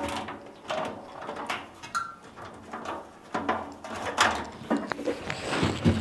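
Handling noise from a tumble dryer's drive belt being slipped off by hand around the sheet-metal drum: scattered knocks and clicks, brief scraping and a few short squeaks.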